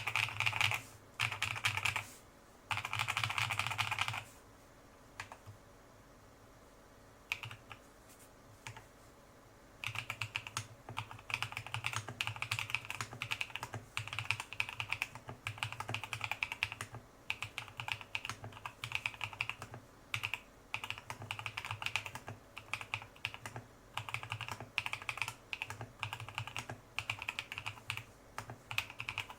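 Typing on a GH60 mechanical keyboard kit whose built-in buzzer beeps with each keypress, over the key clicks. There are three longer held beeps at the start and a few scattered presses, then from about ten seconds in fast, continuous typing with a beep on nearly every key.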